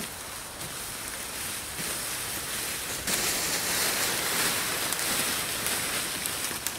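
A long dead branch dragged over dry leaf litter, with footsteps shuffling through the leaves: a steady crackling rustle that gets louder about three seconds in.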